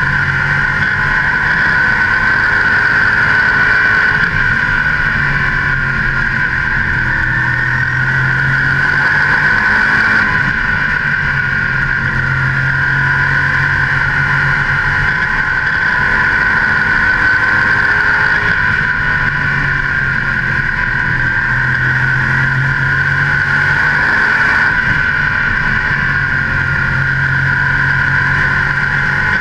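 Modified race car's carbureted engine running hard at racing speed, heard close up from the hood, its pitch rising and easing in a repeating cycle every several seconds as the car laps the oval.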